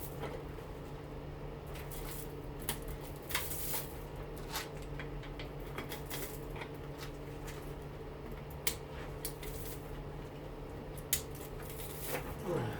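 Scattered light clicks, taps and scrapes of hand work on a front-load washing machine motor being stripped for copper, over a steady low hum.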